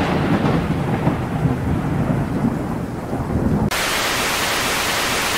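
Thunderstorm sound effect: a thunderclap's rumble dying away over rain. About three and a half seconds in, it switches suddenly to a steady, even rain hiss.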